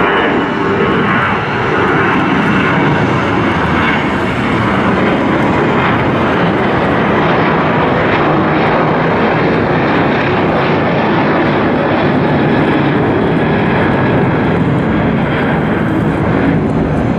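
Boeing 737-800 jet engines running at high power, loud and steady throughout.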